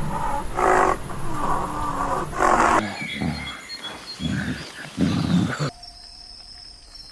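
Big cat roaring, then three short, deep growls about a second apart; the sound cuts abruptly to a much quieter background near the end.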